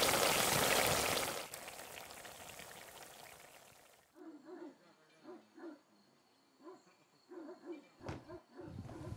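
Cheese polenta (balmoș) sizzling and bubbling in a cauldron over an open wood fire, loud at first and fading away after about a second and a half. From about four seconds in there are only faint, short, repeated calls, and one sharp knock near the end.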